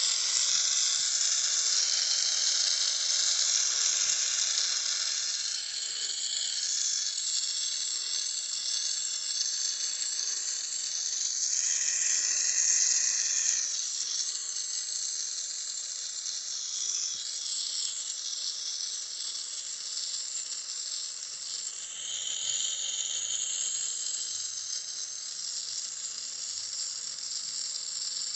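Jeweler's soldering torch flame hissing steadily while it heats a ring seam to flow the solder. The hiss swells briefly about halfway through.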